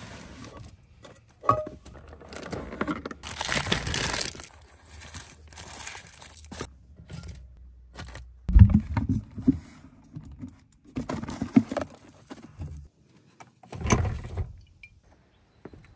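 Cookware and groceries being taken out and set down: scattered knocks and clatters, with plastic bags crinkling about three to four seconds in. A dull thump about eight and a half seconds in is the loudest.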